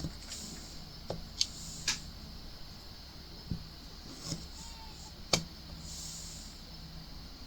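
Irregular small clicks and taps from diamond painting: a drill pen picking up resin drills and pressing them onto the sticky acrylic ornament, about seven sharp ticks over a faint steady hum.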